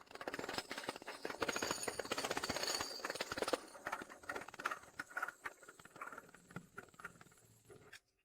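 A rapid, irregular clatter of clicks and knocks, densest for the first few seconds, then thinning out and fading away near the end.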